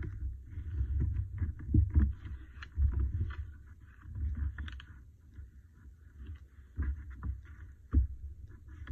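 Hands handling and pressing paper collage pieces onto a page on a tabletop: rubbing and rustling with a few dull knocks, the loudest about two seconds in and again about eight seconds in.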